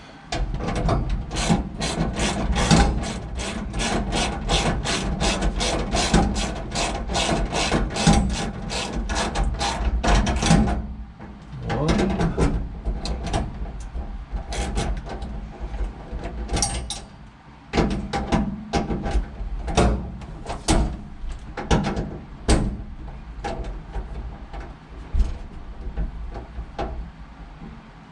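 Hand ratchet clicking as mounting bolts are tightened: a steady run of quick clicks, about three or four a second, for roughly ten seconds, then after a short pause slower, uneven clicks in shorter strokes.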